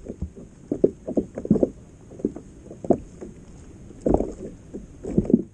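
Small waves slapping and sloshing against the hull of a sit-on-top kayak, in irregular short knocks a few times a second.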